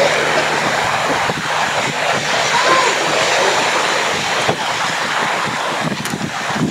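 Mainline steam locomotive approaching at speed under steam, its running sound mixed with heavy wind buffeting on the microphone.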